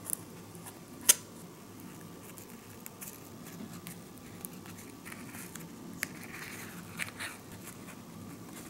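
Small plastic scoop clicking and scraping against a plastic tray and dry cookie crusts, with one sharp click about a second in and a stretch of scratchy scraping with a couple more clicks near the end.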